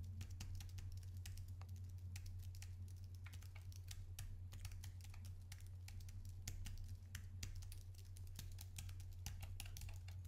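Typing on a computer keyboard: rapid, irregular keystrokes, heard faintly through a Razer Seiren Mini USB condenser microphone on its desk stand, over a steady low hum. The keystrokes stay faint because the microphone's narrow pickup and built-in shock absorber keep typing noise and desk vibration out.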